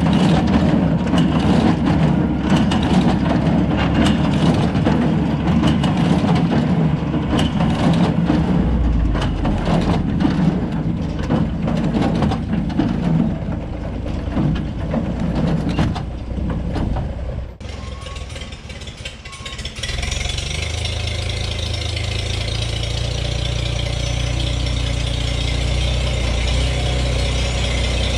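New Holland Super 66 small square baler running in the field, a dense mechanical clatter of chains and gears with many sharp ticks. It cuts off about two-thirds of the way through. After a short quieter stretch, a 1959 Farmall 560 tractor's engine runs steadily.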